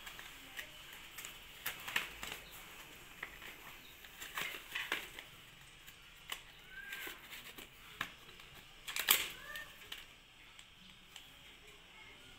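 Scissors being handled out of their plastic-and-cardboard retail pack: scattered crinkles, clicks and taps, with a louder clatter about nine seconds in.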